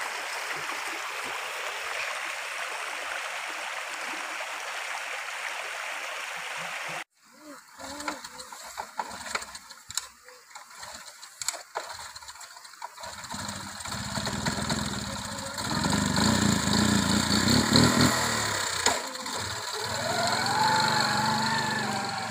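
A stream runs steadily, cut off abruptly about seven seconds in, followed by scattered clicks and rustling. About thirteen seconds in, a small step-through motorbike engine starts and runs, getting louder and revving up and down as the bike rides off.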